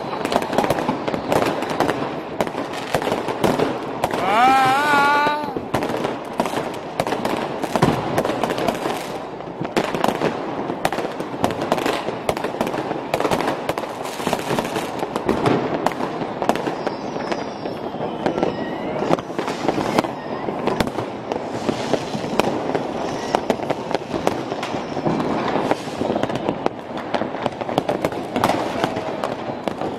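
Dense, continuous banging and crackling of New Year's Eve fireworks and firecrackers across a city street. A loud wavering tone comes about four seconds in, and faint gliding whistles come midway.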